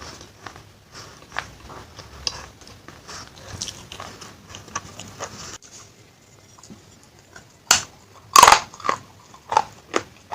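Close-up crunching of baked clay claypot pieces being bitten and chewed: a dense run of small crisp crunches, a quieter stretch from a little past halfway, then a few loud bites near the end.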